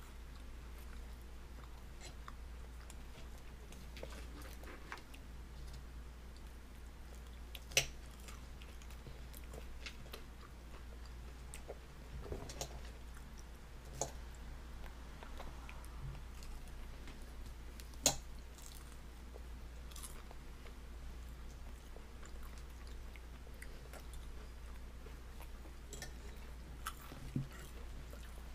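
A baby chewing and mouthing chips, with small wet mouth clicks and a few sharper clicks now and then, over a steady low hum.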